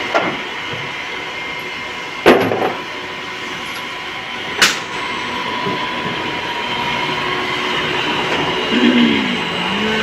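Special-purpose twin-spindle drilling machine running steadily under coolant, with two sharp metal clanks, the louder one about two seconds in, as workpieces are handled at the fixture and parts bin.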